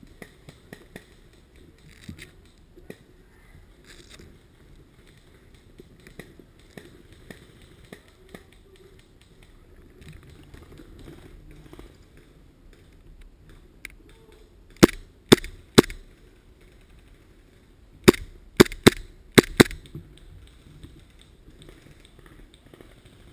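Airsoft guns firing single shots at close range: three sharp cracks about half a second apart, then five more in quick succession a few seconds later, over faint crackling.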